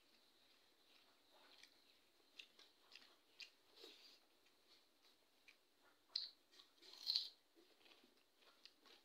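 Faint eating sounds: a person chewing and mixing rice by hand on a steel plate, with scattered small clicks and smacks; the two loudest come about six and seven seconds in.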